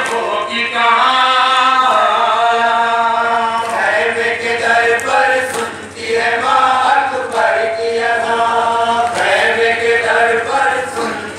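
Men reciting a noha, a Shia mourning lament in Urdu, in chorus into microphones: a slow chanted melody sung in phrases of a few seconds with long held notes.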